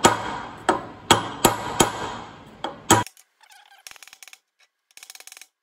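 Ball-peen hammer striking an old bearing race set on a new one, driving the new race into an Allis-Chalmers D17 front wheel hub. About seven sharp metal-on-metal blows ring out over three seconds. The sound then cuts off suddenly, leaving only faint clicking.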